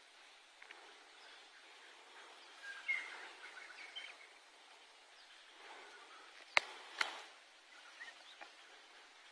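Open-field outdoor ambience: a steady hiss with a few short bird chirps about three seconds in, then two sharp clicks in quick succession about two-thirds of the way through.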